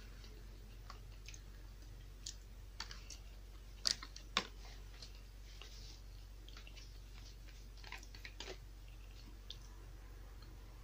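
A person eating: faint chewing with scattered small clicks of the mouth and utensils, the two sharpest about four seconds in and a quick cluster about eight seconds in.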